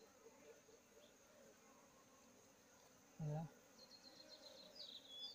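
Faint buzzing of honeybees around a comb being harvested for honey. A brief louder sound comes about three seconds in, and a run of thin high chirps near the end.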